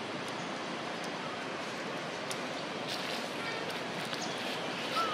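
Steady outdoor background hiss, like wind or distant ambience, with a few faint clicks in the middle and a short high squeak right at the end.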